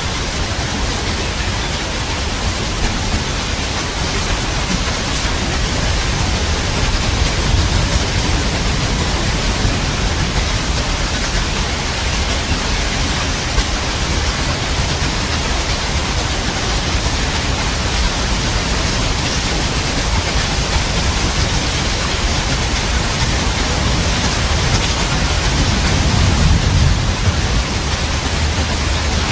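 Steady rain as an even hiss, with a low rumble of thunder swelling near the end.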